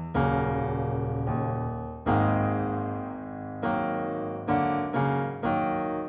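Logic Pro X's sampled Bösendorfer grand piano playing freestyled chords mostly on the black keys: about seven struck chords, each ringing out and fading, coming quicker in the second half.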